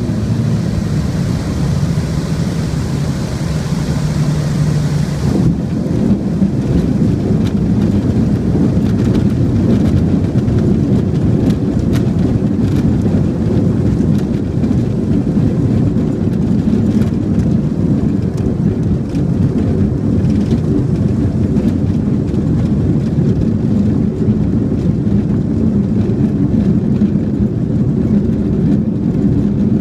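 Light aircraft engine running at low power on short final, then the plane touching down about five seconds in. After that comes a continuous rough rumble with many small knocks: the wheels and airframe rolling over an unpaved dirt runway during the landing rollout.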